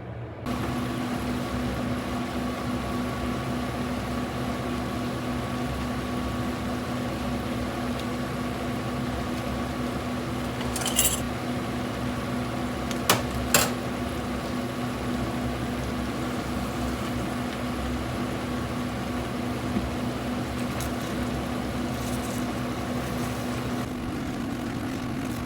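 A kitchen appliance switches on about half a second in and runs with a steady electric hum and a fixed tone. A few light clinks of kitchenware sound in the middle.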